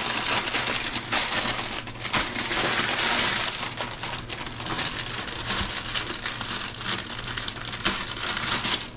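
Paper bread bag with a plastic window crinkling and rustling as a loaf of crusty Italian bread is handled and slid out of it, a steady run of small crackles.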